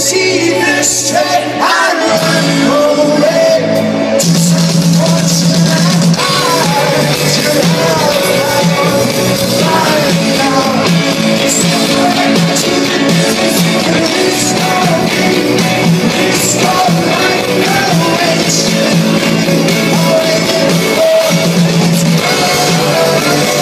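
Live rock band playing a song on stage, with electric guitar, bass and drums and singing over them, loud and steady.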